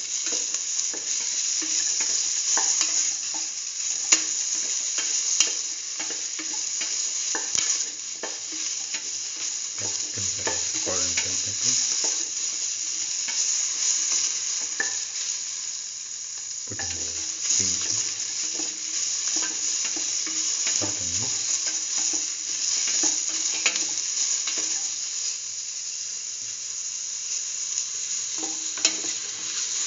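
Diced bell peppers, green chilies, shallots and garlic sizzling in oil in a steel pan as they are stirred, with a steady hiss and scattered clicks of the utensil against the pan.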